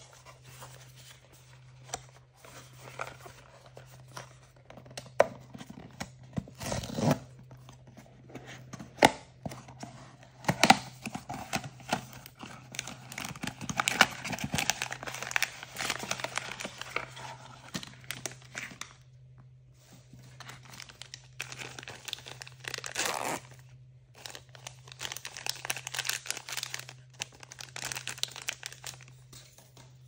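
Hands tearing and crinkling packaging during an unboxing, with sharp clicks and taps scattered through it and a steady low hum underneath.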